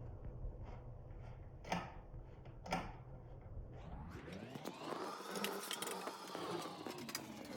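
Two sharp clicks, then from about four seconds in a longer scraping rustle: a DVR's case being worked on by hand as its screws come out and its cover is opened.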